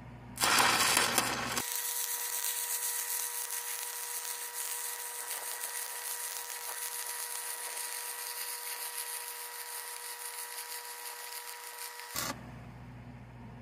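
Stick-welding arc on steel pipe: a loud crackle as the arc is struck, then a steady frying hiss with a faint steady whine for about ten seconds, breaking off abruptly near the end as the rod is pulled away.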